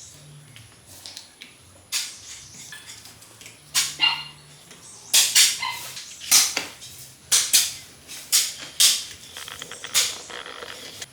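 An irregular series of about a dozen sharp clinks and knocks, some briefly ringing: metal engine parts and hand tools being handled and set down.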